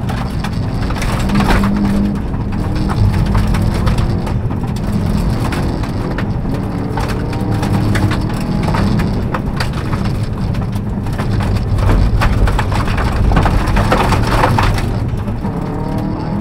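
Subaru Impreza rally car's turbocharged flat-four engine running hard, heard from inside the cabin, its note rising and falling through the gears. Gravel and stones crunch under the tyres and rattle against the underbody in a steady stream of cracks.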